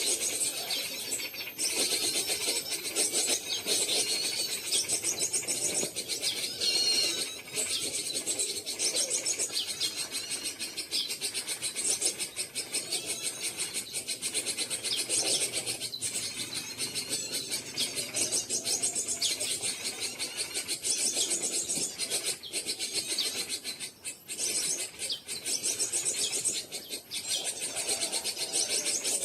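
Small wild birds chirping and trilling continuously, many short calls overlapping, over a steady high hiss.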